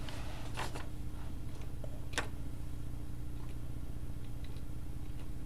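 A steady low hum with a few light clicks, the sharpest about two seconds in.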